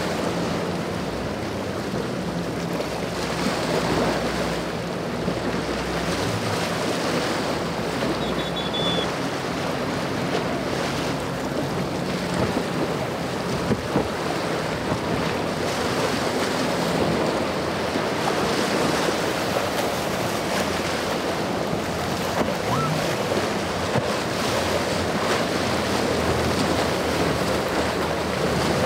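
Powerboats running through choppy inlet water: rushing wash and breaking waves over a steady engine drone, with wind buffeting the microphone. One sharp slap of a hull on a wave about halfway through.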